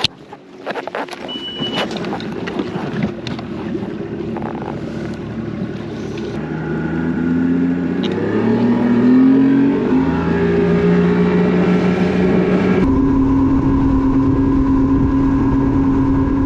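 A few knocks and clunks, then an engine speeding up in steps and running steadily at higher revs, the sound changing abruptly near the end.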